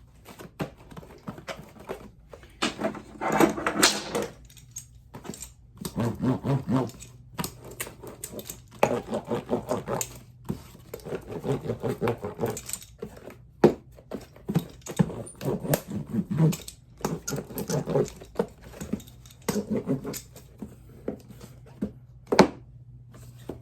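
Handling noises of a shipping package being packed and closed up: irregular rustling, clicks and knocks, over a faint steady low hum.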